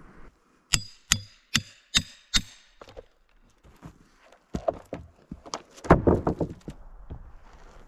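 Five sharp knocks on wood in quick succession, each with a brief metallic ring, then a looser run of knocks and thumps with the loudest about six seconds in.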